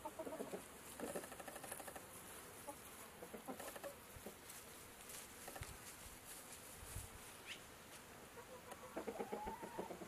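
Chickens clucking in short, rapid bouts, with quieter stretches between them and a louder run of clucks near the end.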